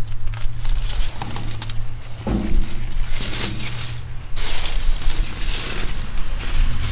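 Irregular crinkling and rustling as the plastic backing strip is peeled off the adhesive seam of foam pipe insulation, over a steady low hum. The crinkling swells about two seconds in and again for the last two seconds or so.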